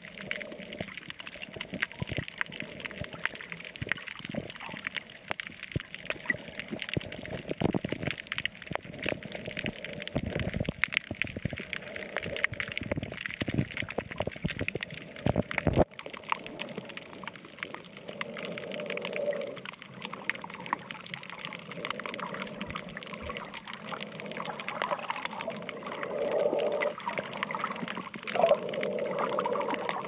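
Underwater sound over a coral reef: a steady wash of water noise with many fast crackling clicks. After a cut about halfway through the low rumble drops away, and soft muffled swells come and go.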